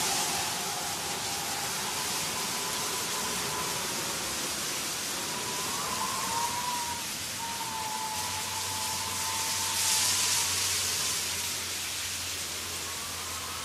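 Ambient sound-design backing track: a steady hiss like rain or rushing water, swelling about ten seconds in, with a faint wavering high tone gliding slowly up and down. A low hum comes in about eight seconds in.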